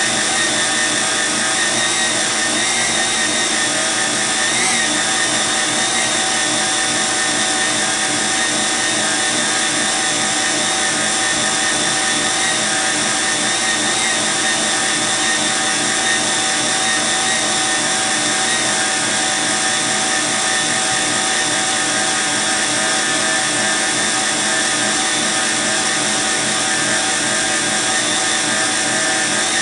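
Electric stand mixer running on speed setting 2, its motor giving an even whine, beating whisked egg-and-sugar cake batter while flour is sprinkled in.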